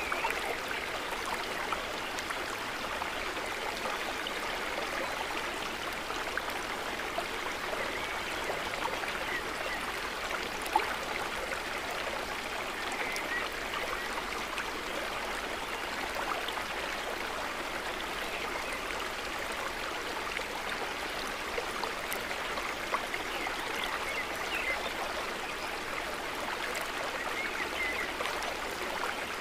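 Water trickling and gurgling steadily, a calm natural water ambience, with one brief tap about eleven seconds in.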